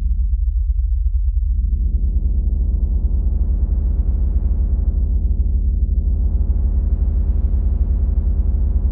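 Modular synthesizer drone: a steady, deep bass tone with a stack of overtones above it. The upper overtones close off almost completely about half a second in, sweep back up, dip again around five to six seconds, then brighten once more as a knob is turned.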